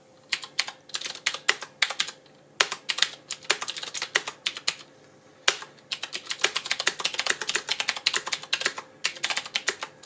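Typing on a Qwerkywriter S typewriter-style mechanical keyboard with clicky Cherry MX switches: a fast, irregular run of key clicks in bursts, with a few short pauses.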